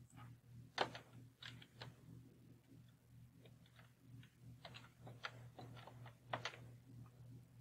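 Faint, irregular clicking of computer keyboard keys being typed, some strokes in quick pairs, over a steady low hum.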